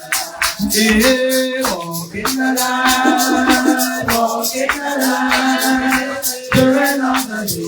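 Worship music: voices singing held notes over a steady beat of bright, shaker-like percussion.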